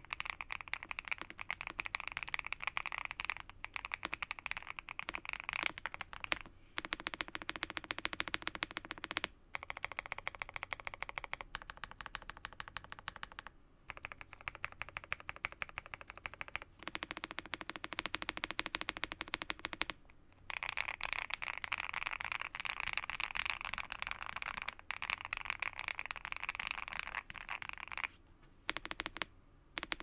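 Typing on a GMK67 mechanical keyboard with lubed Akko Cream Yellow V3 linear switches, a polycarbonate plate, foam and tape mods and Cherry-profile keycaps. The keys give a fast, dense run of muted, creamy clacks in several bursts, broken by brief pauses.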